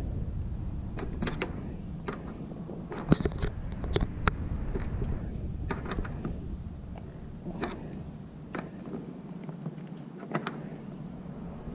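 Irregular metallic clicks and ticks, roughly one every half second to a second, as a wrench turns the nut on a homemade rivnut tool, drawing the bolt back to expand a rivnut set in a car's trunk lid. A low steady hum lies underneath.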